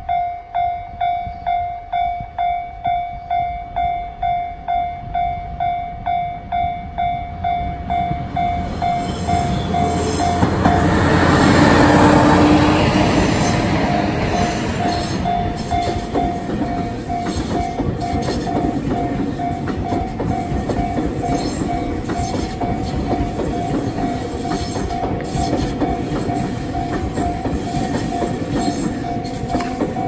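Japanese level-crossing alarm ringing its repeating electronic bell tone, about one and a half strokes a second, set to the Tobu crossing tone. From about eight seconds in, a red-and-white Tobu limited express train rolls over the crossing, loudest around twelve seconds, its running noise and wheel clatter then carrying on steadily under the bell.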